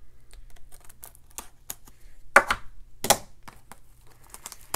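A sealed cardboard trading-card hobby box being handled: a run of light clicks and taps with two louder knocks in the middle, a second or so apart.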